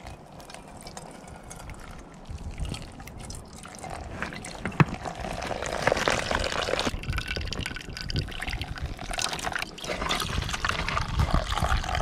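Hot water poured in a stream from an enamel mug into a pour-over coffee filter, then brewed coffee poured from one metal camp cup into another, splashing and filling.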